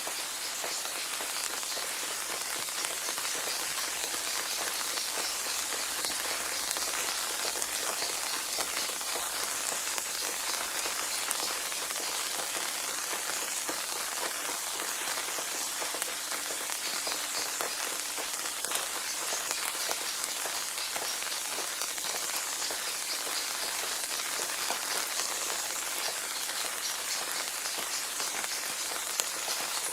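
Steady rain falling on a surface, a continuous hiss with many individual drops pattering throughout.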